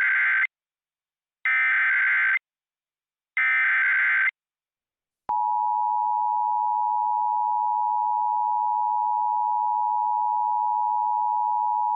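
Emergency Alert System SAME header: three bursts of digital data tones, about a second each (the first already under way). About five seconds in, the steady two-tone EAS attention signal begins and holds, marking the start of an emergency alert.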